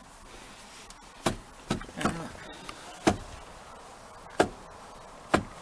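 Front seatbelt height adjuster on a Jaguar XJ's door pillar being worked up and down: about six sharp plastic-and-metal clicks, one every second or so, as it latches into its positions.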